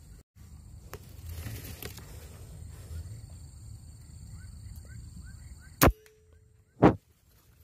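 Two sharp cracks from a PCP air rifle about a second apart, the second louder, as a punai (green pigeon) is shot. Before them, a few faint short bird chirps.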